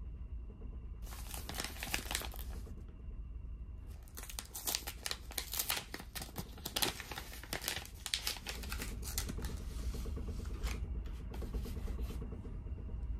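Paper bag crinkling and rustling as it is unsealed and pulled open by hand: a short spell about a second in, then a longer, denser one from about four to nine seconds in that tails off, over a steady low hum.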